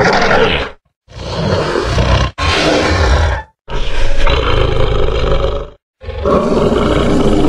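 Dinosaur roar sound effects: a string of loud roars, each one to two seconds long, cut apart by short silent gaps. One roar ends about a second in and four more follow.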